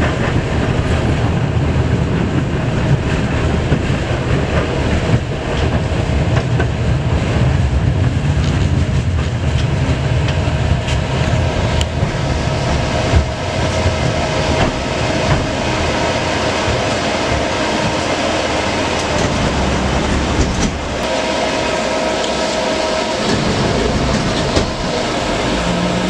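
Tram car running along its track, heard from inside the car: a steady rumble of steel wheels on rails with scattered clicks and knocks and a steady whine. About 21 seconds in the low rumble eases while the whine grows louder.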